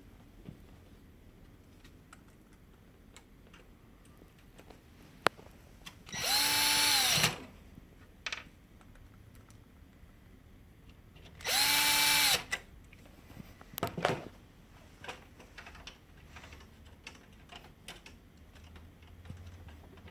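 Electric screwdriver running in two short bursts of about a second each, about five seconds apart, each spinning up and winding down as it turns a printer screw. Light clicks of plastic parts being handled come in between.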